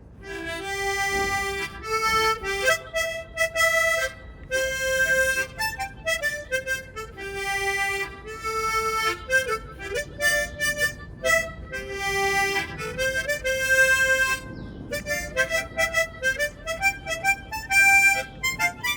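A single instrument playing a slow Japanese popular-song melody from memory, mostly held notes, with a short break about three quarters of the way through and quicker notes after it.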